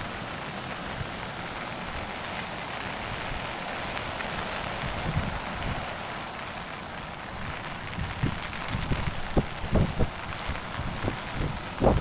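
Ocean surf from a typhoon swell breaking and washing up a sandy beach, a steady hiss of whitewater. From about eight seconds in, gusts of wind buffet the microphone in irregular thumps.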